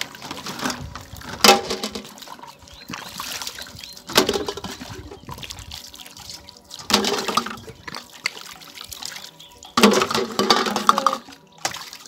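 Water splashing and trickling in a metal basin as plastic water bottles are washed and poured out, with four louder splashes about every three seconds.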